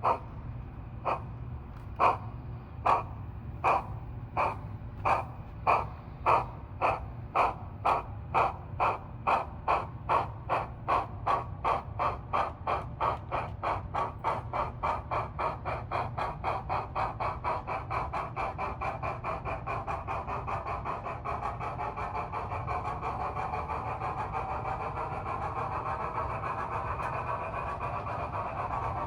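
Sound decoder of an HO-scale DCC model of the steam locomotive Tornado playing steam exhaust chuffs as the model pulls away. The chuffs start at about one a second and quicken steadily as it gathers speed, running together into a fast, even beat in the second half.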